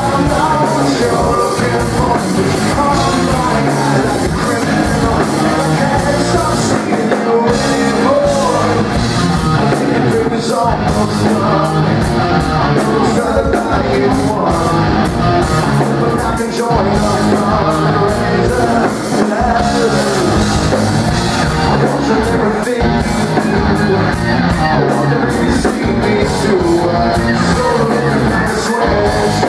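Live rock band playing loudly, with singing, distorted guitars and drums, as recorded from the audience.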